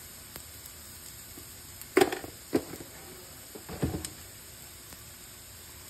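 A few knocks and clatters of kitchen utensils, three in all, the loudest about two seconds in, over a faint steady background.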